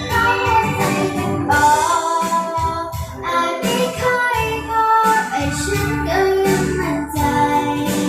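A song playing: a high voice singing a held, gliding melody over instrumental backing with a steady beat.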